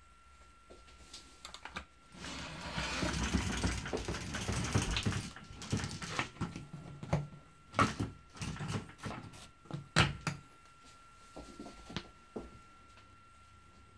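IKEA TUPPLUR roller blind being handled and pulled down by its bottom rail: about three seconds of rustling, then a run of irregular sharp clicks and knocks from the rail and roller.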